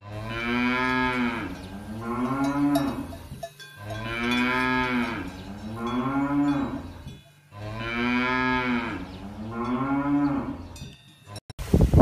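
Cows mooing: long, deep lowing calls in pairs, with the same pair heard three times over. Cowbells clink faintly behind the calls.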